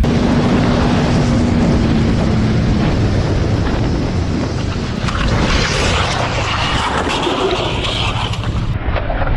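Wind rushing over a motorcycle rider's helmet camera at speed, with the bike's engine running steadily underneath. About halfway through, the noise turns harsher and brighter as the motorcycle crashes and goes down on the road.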